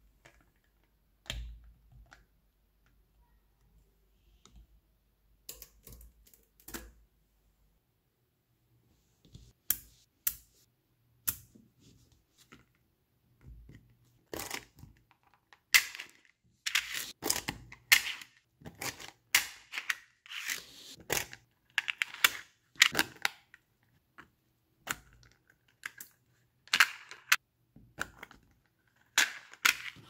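Small neodymium magnetic balls clicking as they snap together into rows and layers. Only a few scattered clicks at first, then rapid clusters of sharp clicks through the second half.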